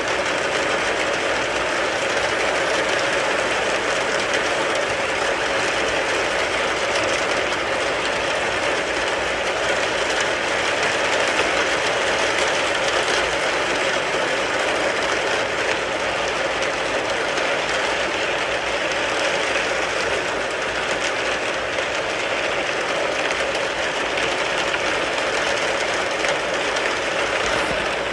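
Steady rain falling on a car, heard from inside the car.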